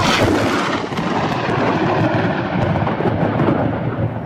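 Close thunderclap: a sudden sharp crack, then a rolling rumble that goes on for several seconds.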